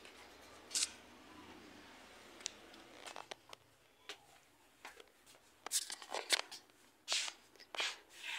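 Faint, scattered short scuffs and rustles, most of them in the second half, from a person walking and moving while holding the phone that films.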